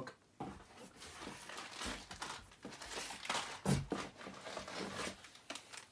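Rummaging in a cardboard box: rustling and crinkling of cardboard and plastic-wrapped products, with a soft thud about three and a half seconds in as an item is handled.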